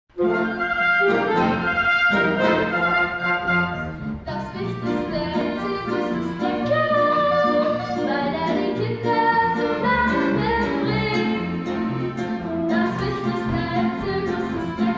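Live band, with a drum kit, playing the music for a stage-musical song.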